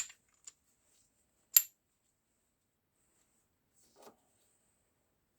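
A few sharp metal clinks as gearbox parts are handled and set down on the bench, the loudest about a second and a half in and a fainter one near four seconds.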